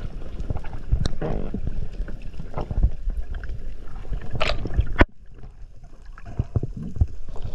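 Underwater sound picked up through a camera's waterproof housing: muffled water movement with irregular knocks and thuds. A sharp crack comes about five seconds in, after which it is quieter.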